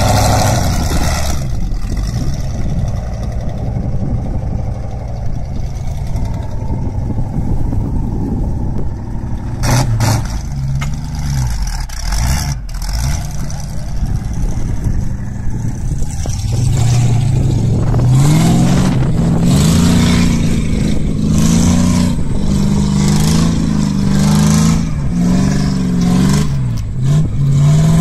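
Engine of a four-wheel-drive cab-over truck loaded with firewood, working hard as it drives through soft ploughed dirt. It runs fairly steadily at first, with a few knocks near the middle; from a little past halfway it revs higher and its pitch rises and falls again and again as the truck labours under the load.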